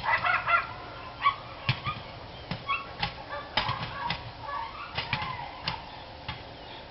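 Dogs barking in short, sharp barks at irregular intervals, with a quick run of barks in the first half-second.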